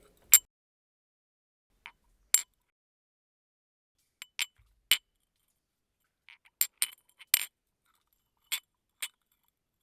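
Tea glasses clinking: about a dozen short, sharp glass clinks at irregular intervals, some close together in pairs, each ringing only briefly. The loudest is the first one, near the start.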